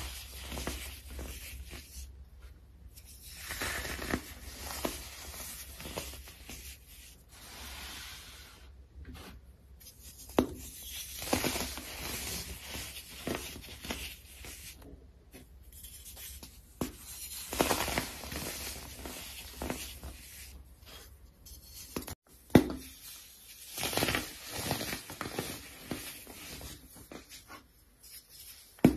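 Hands crushing and crumbling soft powdery blocks: dry crunching and crackling with powder sifting down, broken by a few short gaps where the clips change.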